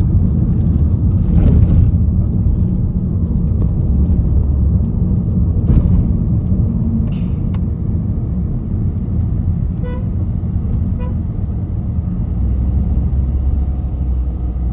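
Steady low rumble of road traffic, with two short car-horn toots about ten and eleven seconds in.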